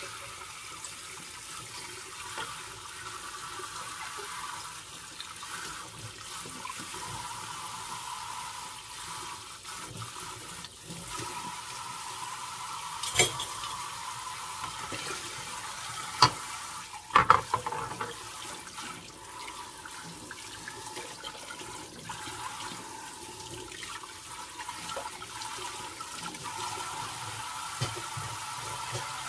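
Kitchen faucet running a steady stream of water into a glass bowl in a stainless steel sink. A few sharp clinks of dishes stand out around the middle.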